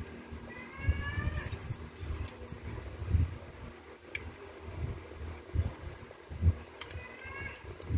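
Hand scraper working over the engine block's water-pump mounting face, scraping off old gasket material in short, irregular strokes with knocks of metal on metal. Two short whining squeals sound, one about half a second in and one near the end.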